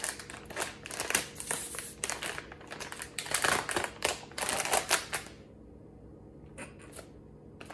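Blind-bag packaging being torn open and crinkled by hand: a dense run of sharp crackles that stops about five seconds in.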